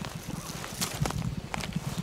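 Rustling and handling noise as gloved hands work over grass and turkey feathers with a tape measure, with a few light clicks and a low rumble underneath.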